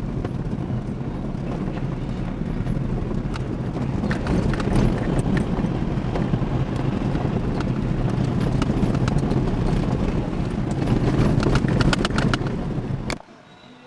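Vehicle driving along a rough dirt road: a steady low rumble of engine and road noise with a fast, uneven clatter of rattles and knocks from the bumps. It cuts off suddenly near the end.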